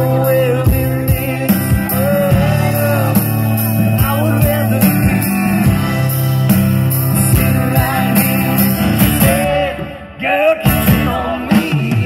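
Live band playing a rock song on guitar, keyboard and drums, with a melody line weaving over a steady beat; the music drops briefly about ten seconds in, then picks up again.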